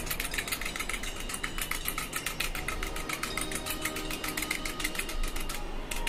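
Aluminium foil stretched over a hookah bowl being pierced over and over to make holes: rapid ticks, about seven or eight a second, stopping just before the end.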